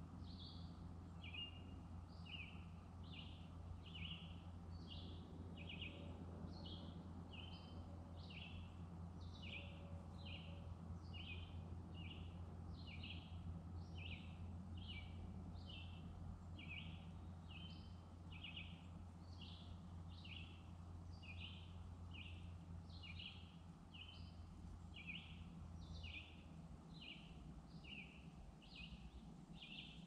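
Birds chirping steadily in short, high, falling notes, about two a second, over a low steady hum that fades out near the end.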